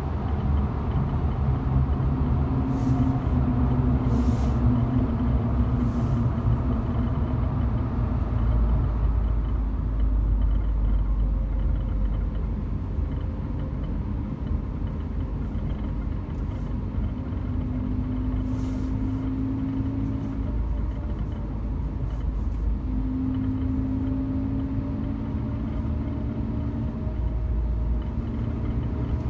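Volkswagen Golf Mk7 GTI on the move: a steady low road rumble with the engine's tone slowly rising and falling as speed changes. A few faint, short ticks come and go above it.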